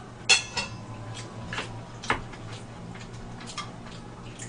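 A metal spoon clinking against a stainless steel bowl: a handful of short, sharp clinks with a ringing tone, the loudest about a third of a second in and another about two seconds in.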